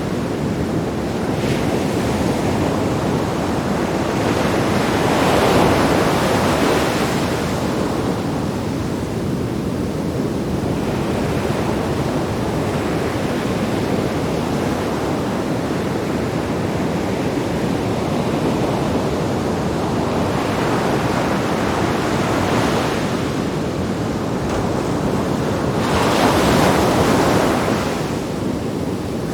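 Sea waves breaking on rocks, a steady wash of surf that swells louder about five seconds in and again near the end, with wind on the microphone.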